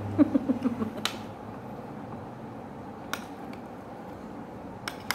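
Sounds of eating at a table: a short hummed voice sound at the start, then a few scattered sharp clicks and clinks of plates and utensils as food is picked from a shared plate.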